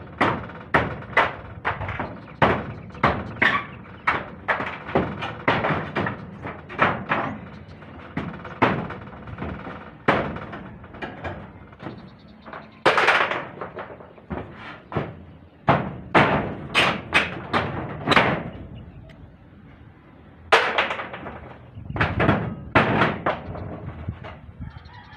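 Claw hammer striking a corrugated metal roof sheet, driving roofing nails: a long irregular series of sharp knocks, some in quick runs, with a short pause about three quarters of the way through.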